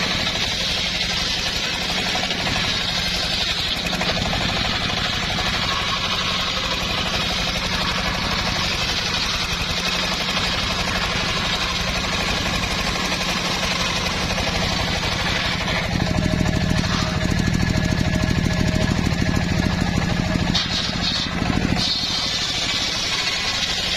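Homemade circular sawmill running, its large blade ripping lengthwise through an old mahogany log with a steady drone and a hiss of cutting. About two-thirds of the way through, the saw grows louder and rougher for several seconds, then settles back.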